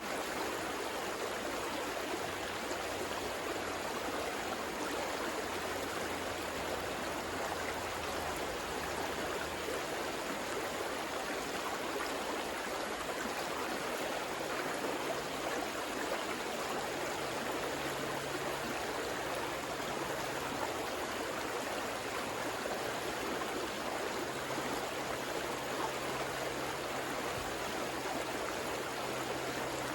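River water flowing, a steady, unbroken rush.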